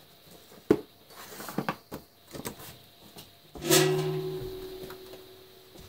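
Metal tools and small parts clicking and clacking on a workbench as they are handled. About three and a half seconds in, a single sharp strike sets off a clear ringing tone that dies away over about two seconds.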